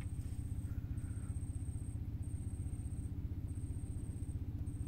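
A low, steady engine rumble, pulsing quickly, with a thin high whine that comes and goes.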